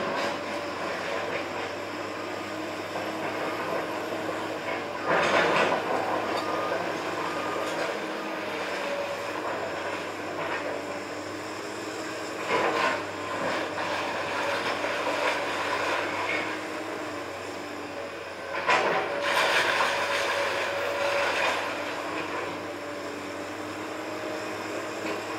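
Komatsu hydraulic excavator running steadily during house demolition, its engine and hydraulics humming, with three louder bursts of debris crashing and scraping: about five seconds in, around halfway, and again about three-quarters of the way through.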